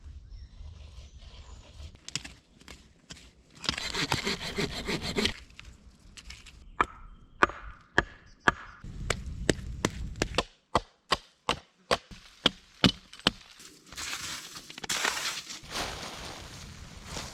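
Wood being worked by hand with cutting tools: a short burst of fast rasping strokes, then a run of sharp chopping knocks about twice a second, then a longer rasping stretch near the end.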